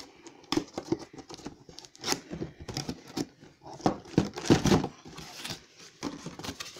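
A cardboard box being opened by hand, its flaps and the plastic packaging inside rustling, crinkling and scraping in irregular bursts, with small knocks, busiest around the middle.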